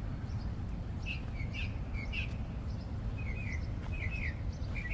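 Small birds chirping: short, quick chirps in little clusters about once a second, over a steady low background rumble.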